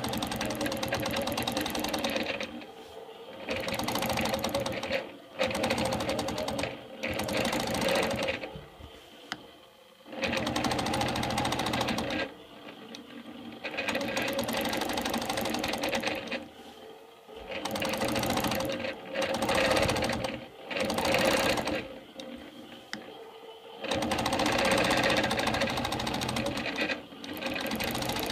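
Longarm quilting machine stitching straight lines guided along a quilting ruler, running in stretches of one to four seconds with short stops between.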